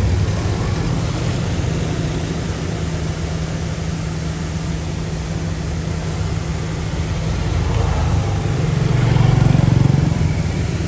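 Heavy diesel engine of earthmoving machinery running steadily, growing louder around nine seconds in and then easing off.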